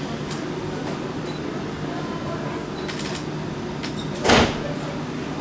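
Hakone Tozan Railway 3000-series electric train standing at a platform, humming steadily, with a few light clicks and one short, loud burst of noise about four seconds in.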